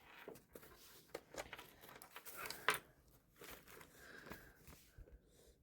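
Irregular rustling and small clicks of hands handling things at a table, with one sharper click about halfway through.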